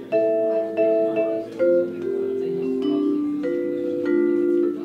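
Background music: struck, ringing notes over held chords, a new note sounding every half second or so.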